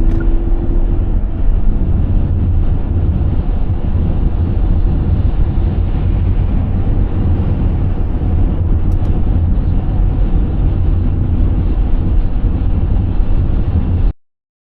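Wind buffeting the microphone: a loud, steady low rumble with a hiss on top, cutting off abruptly near the end.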